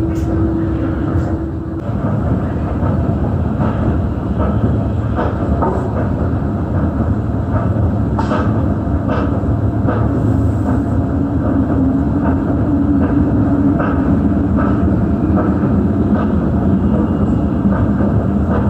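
Airport apron bus driving, heard from inside the cabin: a steady engine and road rumble with a drawn-out whine and scattered short rattles and clicks.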